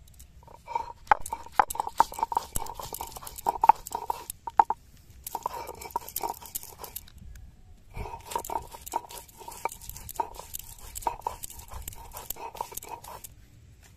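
Fresh ginger and garlic being crushed and ground on a stone slab with a hand-held grinding stone (shil-nora): crunching, scraping strokes of stone on stone. The strokes come in three runs, with short breaks about five and seven and a half seconds in, and stop shortly before the end.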